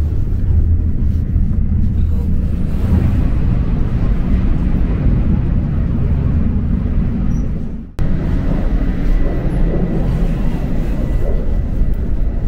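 Bullet train (Shinkansen) running at speed, heard from inside the carriage: a steady low rumble of the moving train. It breaks off briefly about eight seconds in.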